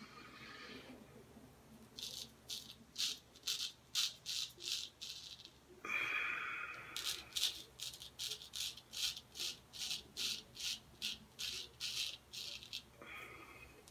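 Straight razor scraping through lathered stubble on the neck: short, rasping strokes at about two or three a second, with a brief steadier hiss about six seconds in.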